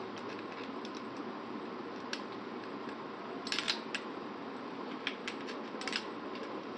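Light clicks and taps of a small screw and Allen key being handled and fitted into a shotgun scope mount, a few scattered ticks with a cluster in the middle, over a steady hiss.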